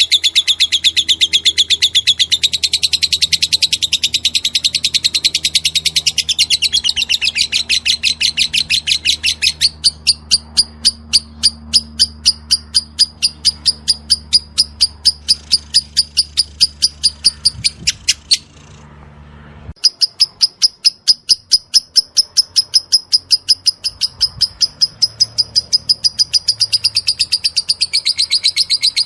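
Lovebird singing in the rapid 'ngetik' (typing) style: a long run of fast, clicky high chirps, about five or six a second, broken by one short pause a little past the middle. This unbroken, run-on ngetik is what bird keepers call 'konslet'.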